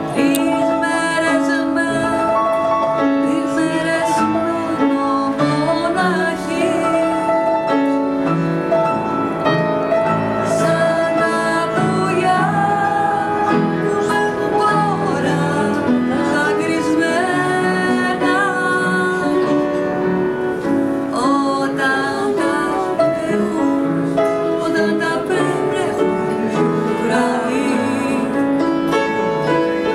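A woman singing a song with piano accompaniment, her voice gliding and wavering over the sustained piano chords.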